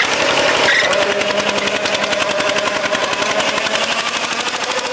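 Single-cylinder diesel engine of a small Sing To Thong tractor running under load while its PTO-driven rotary tiller churns soil: a rapid, even engine beat with a steady whine over it.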